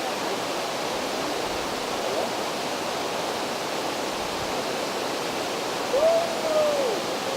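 Steady rush of flowing water, like a stream or small waterfall. About six seconds in, a single short call rises and then falls in pitch.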